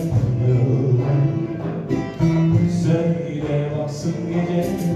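Live acoustic Turkish song: a man singing with nylon-string classical guitar and bağlama accompaniment.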